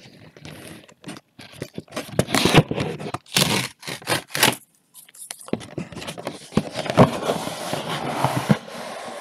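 Trading-card boxes and their wrapping being handled and opened close to the microphone: irregular scraping, crinkling and rustling of cardboard and plastic, with a few knocks, busier in the second half.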